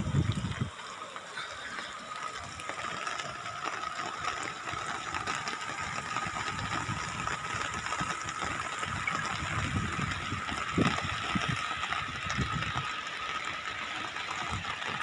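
Steady rushing noise of floodwater spreading over flooded fields and a road, with a faint steady high tone running through it and a few low gusts of wind on the microphone about two-thirds of the way in.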